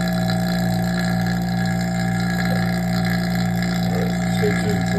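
Electric vacuum pump running steadily, a constant low hum with a few fainter higher tones above it.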